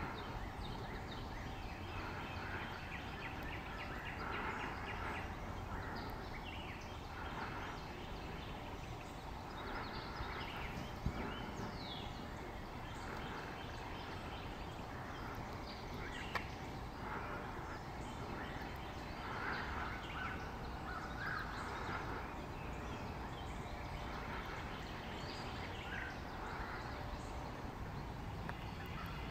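Woodland ambience: a steady background hiss with scattered distant bird calls and chirps throughout. There is a sharp click about eleven seconds in and another about five seconds later.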